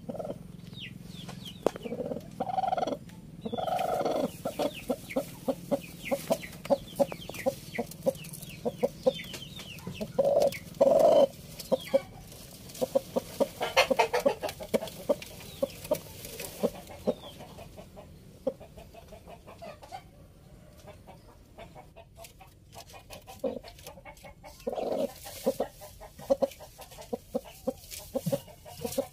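Pakhoy hen sitting on her straw nest, clucking in a long run of short notes about two a second, with louder, drawn-out calls now and then. It is the protest of a sitting hen as a hand reaches under her for the eggs.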